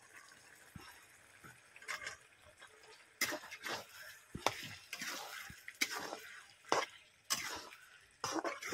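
A flat metal spatula stirring chicken pieces into wet masala paste in a kadhai, a run of short scraping strokes starting about three seconds in.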